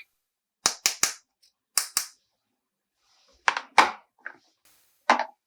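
Sharp clicks and taps of toy pieces being handled, in small clusters of two or three with short silences between.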